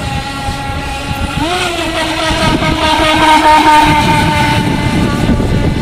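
Radio-controlled model speedboat running fast across the water, its motor a steady whine. The whine rises in pitch and grows louder about a second and a half in, then eases off near the end.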